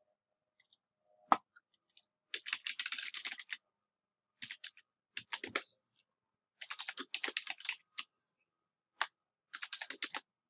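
Computer keyboard typing in several bursts of rapid keystrokes, with short pauses and a few single clicks between.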